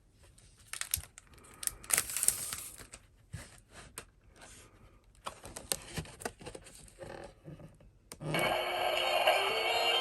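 Rustling, scraping and clicking as a paper-and-plastic commemorative ticket folder is handled and opened. About eight seconds in, its built-in sound chip suddenly starts playing the Keikyu 'Doremifa' inverter sound, an electronic whine stepping up in pitch like a rising musical scale, imitating a Siemens GTO VVVF inverter as the train pulls away.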